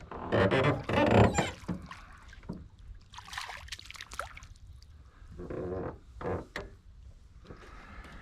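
Knocks and clatter of fishing gear against a small boat, with some water sounds. There is a cluster of knocks in the first second and a half and a short hissing rush about three seconds in.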